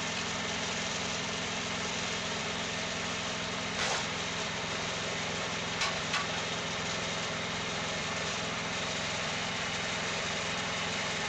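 Wood-Mizer sawmill engine running steadily, with a brief knock about four seconds in and two short clicks about two seconds later.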